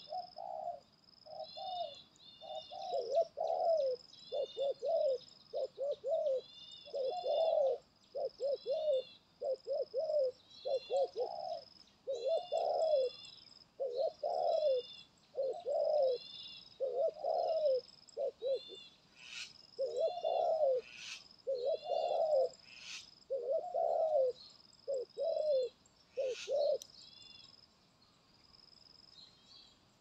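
Spotted dove cooing in a steady series of short repeated phrases, which stop a few seconds before the end. A high steady tone with regularly repeating chirps runs above the cooing, with a few sharp clicks near the end.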